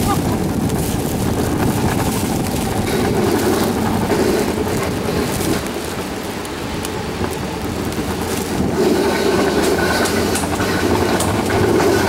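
Alpine coaster sled running down its metal rail track, a continuous rumble of wheels on the rails that eases a little in the middle and picks up again toward the end as the sled speeds up.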